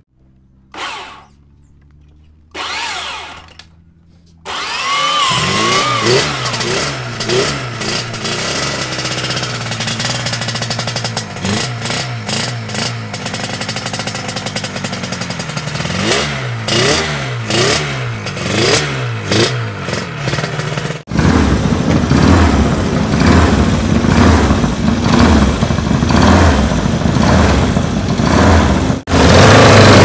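Classic racing motorcycle engine firing in two short bursts, then running from about four seconds in with repeated throttle blips that rise and fall in pitch. About two-thirds of the way through it gives way suddenly to a louder, deeper-sounding racing motorcycle engine running.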